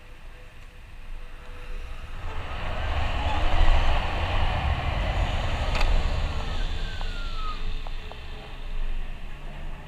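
Zero SR electric motorcycle pulling away from a stop: wind rush on the microphone and tyre noise build as it gets up to speed, then ease as it slows. A faint electric-motor whine rises as it accelerates and falls as it slows, and there is a single sharp click about halfway through.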